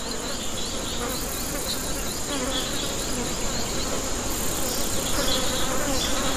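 Flies buzzing around fallen fruit: a steady, dense insect buzz that slowly grows louder, with faint short high chirps repeating over it.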